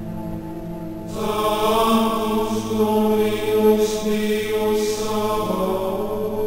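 Background music of slow, sustained chant-like voices over a steady drone, growing fuller about a second in and thinning out again near the end.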